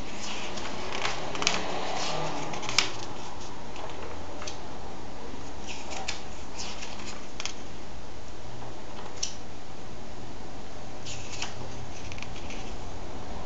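Pages of a comic book being turned by hand: short, scattered paper rustles and light taps over a steady background hiss, with a couple of sharper clicks in the first few seconds.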